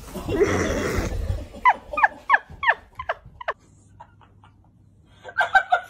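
A quick run of six short animal calls, each falling steeply in pitch, about three a second, after about a second and a half of loud rough noise; a shorter cluster of calls comes near the end.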